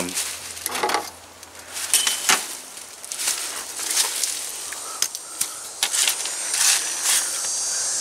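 Irregular rustling and clicking from a window air conditioner's filter screen being handled. Insects set up a steady high chirring near the end.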